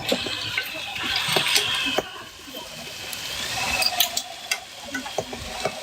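Food sizzling in a pan as a steady hiss, with scattered sharp clicks and knocks of a utensil against the pan.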